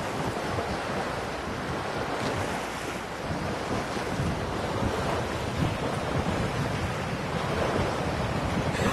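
Wind buffeting the microphone over water rushing along the hull of a sailing yacht under way, a steady rushing noise with no distinct events.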